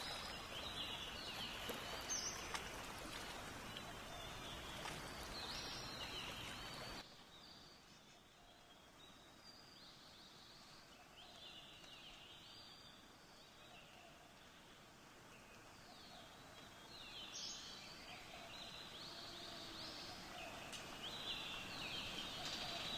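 Outdoor nature ambience of songbirds: scattered short chirps and call phrases over a steady background hiss. The whole ambience drops abruptly in level about seven seconds in, then grows louder again toward the end with more calls.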